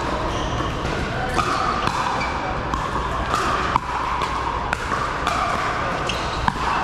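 Pickleball rally: paddles striking a hard plastic pickleball in a run of sharp pocks at irregular intervals, roughly one a second, in a large indoor hall with a murmur of voices behind.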